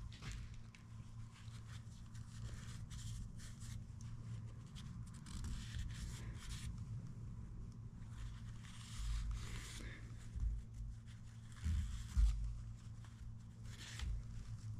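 A cloth rag rubbing and scrubbing in short strokes inside a tractor PTO housing, cleaning dirt out of it, with a few dull knocks between about nine and twelve seconds in.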